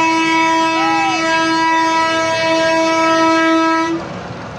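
A vehicle horn blown in one long, steady, single-pitched blast, cutting off suddenly about four seconds in.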